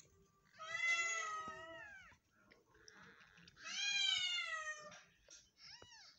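Newborn kittens mewing: two long, high cries about three seconds apart, each sliding down in pitch at the end, then a short, fainter squeak near the end.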